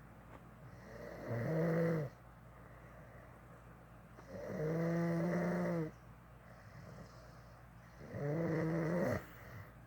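A sleeping man snoring: three loud, buzzing snores with a low pitch, each lasting one to one and a half seconds, coming about every three and a half seconds with quiet between.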